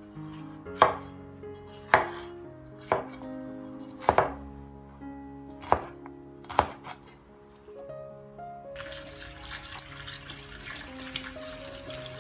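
Cleaver chopping a green bell pepper on a wooden cutting board, sharp knocks about a second apart. Near the end, water runs from a tap as dried chillies are rinsed.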